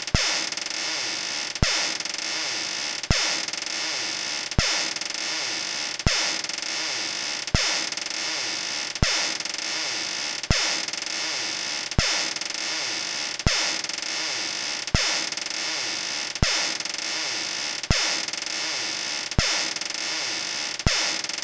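Creaking door sound effect looped over and over, repeating about every one and a half seconds with a sharp click at each repeat, over a steady hiss.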